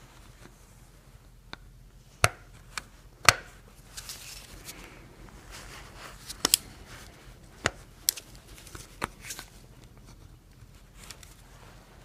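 Steel screwdriver tip prying and scraping inside a Toyota seat belt buckle clamped in a vise, working behind the buckle's metal plate to open it. A dozen or so irregular sharp clicks and ticks of metal on plastic and metal, the loudest about three seconds in.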